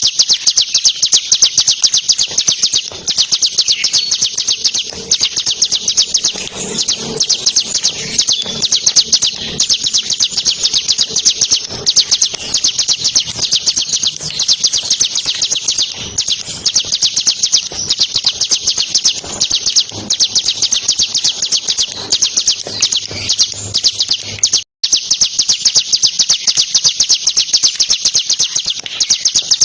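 Bar-winged prinia (ciblek) singing nonstop in a fast, dense run of high chirping notes. The song briefly cuts out about 25 seconds in.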